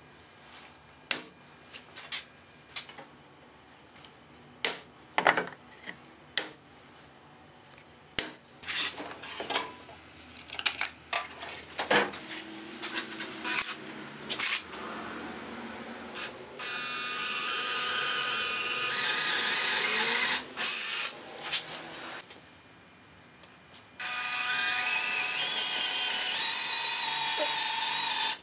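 Makita cordless drill boring into an old wooden beam, running in two long stretches in the second half with a whine that rises in pitch as it speeds up. Before that, scattered sharp knocks and clicks.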